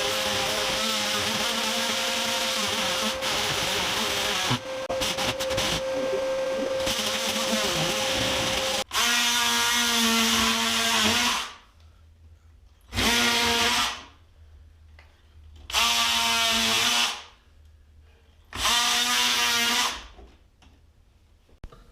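Power drill running: one steady run of about nine seconds with a constant whine, then four short trigger bursts of a second or so each, a few seconds apart.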